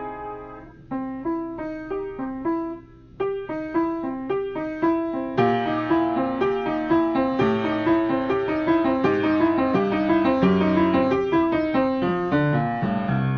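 Piano or keyboard being played: a few separate notes and short phrases at first, then a fuller run of notes and chords from about five seconds in.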